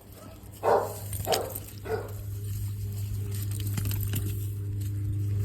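A dog barks three times, about half a second apart, then a low steady hum slowly grows louder.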